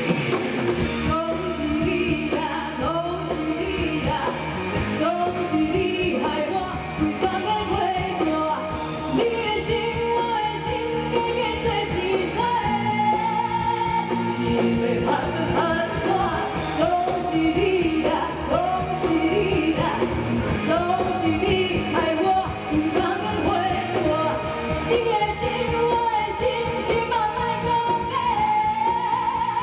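A woman singing a pop song live into a microphone over loud amplified backing music.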